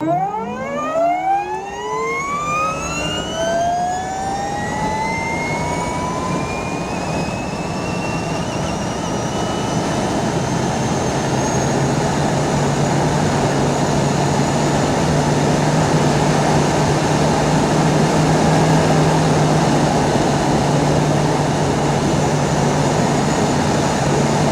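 Electric motorcycle accelerating hard. The motor's whine climbs steeply in pitch over the first several seconds and then levels off into a high steady whine, under a rushing noise that slowly grows louder.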